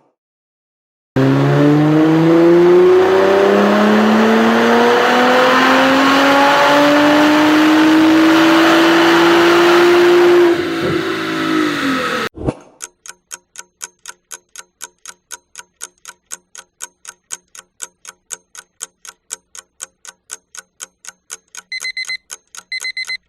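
A car engine accelerating hard, its pitch rising steadily for about nine seconds, then easing off and cutting off abruptly. A countdown timer follows, ticking about three to four times a second, with two short beeps near the end.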